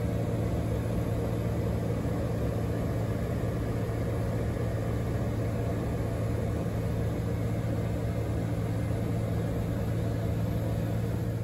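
Light aircraft's engine and propeller droning steadily in flight, heard inside the cockpit: an even low hum with rushing air noise over it.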